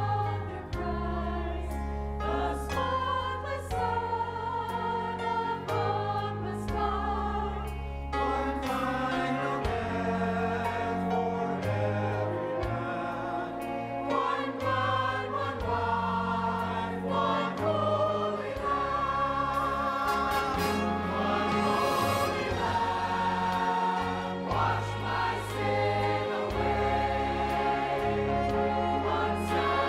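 Church choir singing with instrumental accompaniment and a steady bass line.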